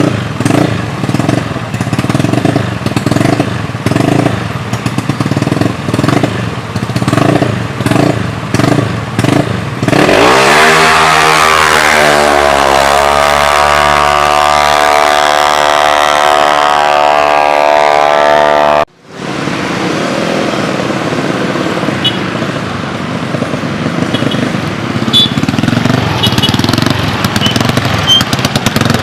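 Drag-racing motorcycle engines being revved in short repeated blips for about ten seconds. Then one engine runs at full throttle, its pitch climbing and then holding high for about nine seconds, the loudest part, until it cuts off suddenly. Steady outdoor noise follows.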